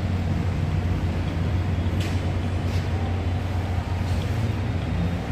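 A steady low hum, with a few faint clicks around the middle.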